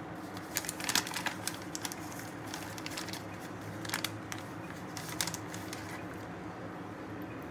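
Brown paper bag crinkling and crackling as a baked sweet potato is pulled out of it, loudest about a second in and again around four and five seconds, over a steady low hum.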